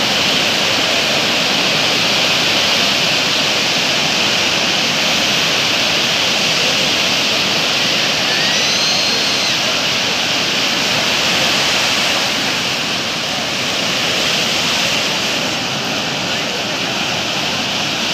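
Sea surf breaking and washing up the beach in a steady, loud rush of noise, waves running around a stranded whale carcass in the shallows.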